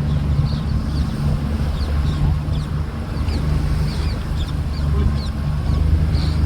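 Fishing boat's engine running steadily, with short high chirps repeating about twice a second over it.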